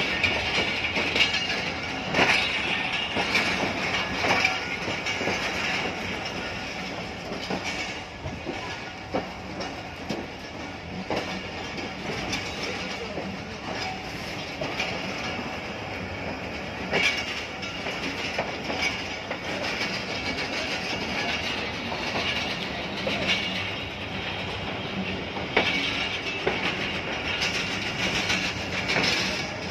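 Passenger train coaches rolling slowly over yard tracks and points. The wheels clack irregularly over the rail joints above a steady rumble, and a high wheel squeal is held underneath.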